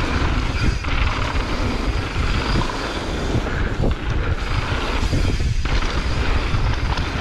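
Mountain bike rolling fast down a packed-dirt trail: steady wind rush on the microphone over the rumble of the tyres on the dirt, with a few knocks from the bike over bumps.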